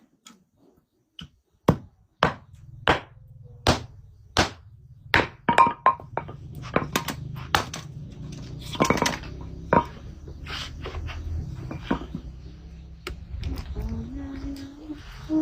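Wood being chopped with a blade: a series of sharp chopping blows at an uneven pace, roughly one or two a second, over a low steady hum that comes in about two seconds in.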